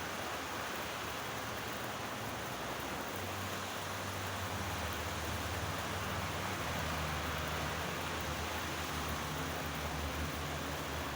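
Steady heavy rain falling, an even hiss, with a low rumble joining underneath about three seconds in.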